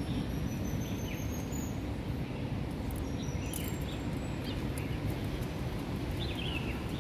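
Steady outdoor background noise with a few faint, short high chirps: one about a second in, one midway and a couple near the end.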